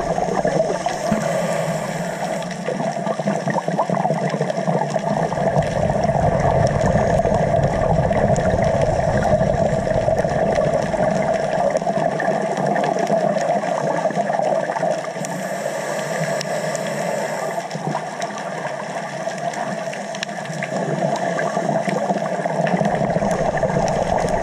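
Underwater ambient noise picked up by a dive camera in its waterproof housing: a steady, muffled water rush. The deepest rumble drops away twice, for a few seconds and then for about ten seconds.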